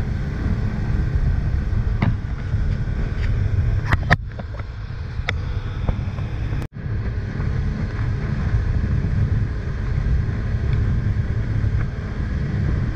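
Fishing boat running fast across open water: steady engine rumble mixed with the rush of wind and spray from the wake. A few sharp knocks come about 2 and 4 seconds in, and the sound cuts out for an instant about two-thirds of the way through.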